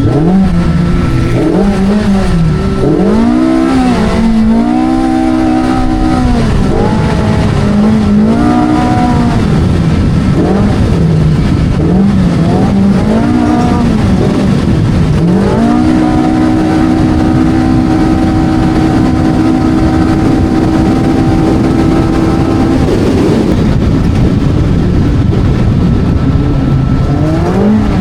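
Polaris RZR Pro R side-by-side's engine running hard at race pace, loud, its revs rising and falling again and again. About halfway through, the revs hold at one steady pitch for about seven seconds before dropping and rising again near the end.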